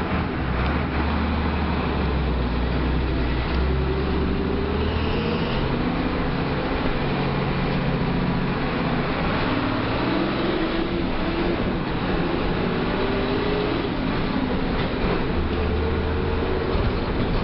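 Front-mounted diesel engine of a Mercedes-Benz OF 1318 bus running as the bus drives. Over a steady low drone, its pitch rises several times as it pulls through the gears.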